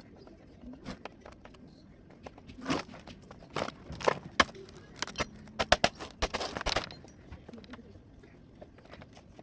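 Irregular sharp clicks and clatter of plastic and metal laptop parts being handled and pried apart, bunched in the middle and thinning out near the end.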